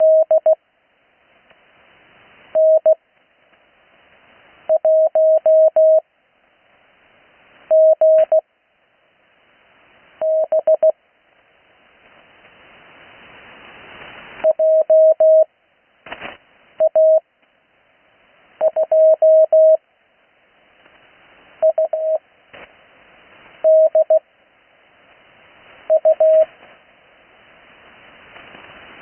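Morse code (CW) practice characters sent fast with long Farnsworth gaps between them: a steady mid-pitched tone keyed in short groups of dits and dahs, about a dozen characters, one every two seconds or so. It is heard over an 80 m band shortwave radio, with band hiss swelling up in each gap between characters.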